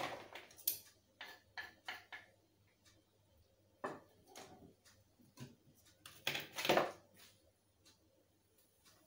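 Kitchenware being handled: a wooden cutting board knocking and scraping against a plastic mixing bowl as chopped liver is pushed off it, then the blender jug and bowl being picked up. A run of short knocks and scrapes, with the loudest scrape and clatter about six to seven seconds in.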